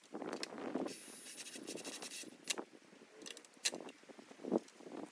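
Scattered clicks and knocks with stretches of scraping, from hands-on work at a wooden target frame's crossbeam.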